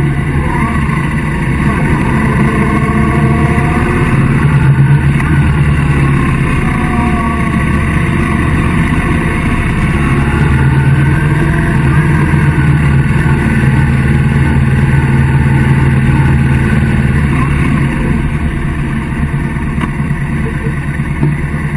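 Motorcycle engine running at road speed, its note rising and falling with the throttle, with a steady rush of road and wind noise. It eases off slightly near the end.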